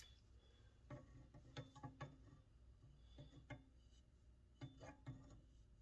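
Faint clinks and knocks of metal hand tools being picked up and handled, such as a pair of vise grips, in a few small clusters of clicks.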